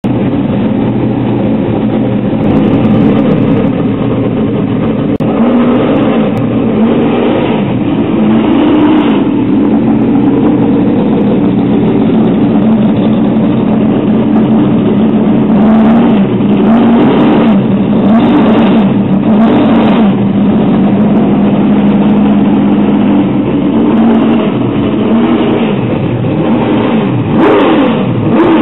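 Ford FPV GT's Boss 315 V8 running, the revs rising and falling repeatedly, with several sharper blips in the second half.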